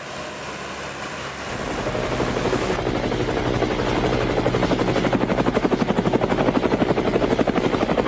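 Helicopter flying over, its rotor beating in a fast, even rhythm. It grows louder about a second and a half in.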